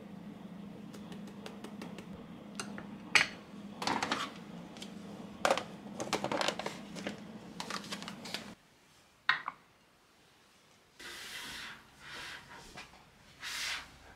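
Light clicks and clinks of a herb shaker and a metal spoon against a ceramic bowl, over a steady low hum. The hum cuts off about two-thirds of the way through, leaving a few soft rustles.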